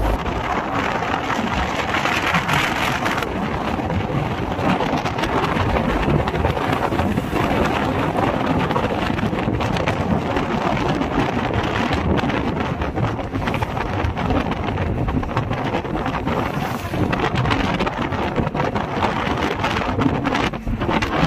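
Steady rush of wind buffeting the microphone from a moving vehicle, mixed with road noise.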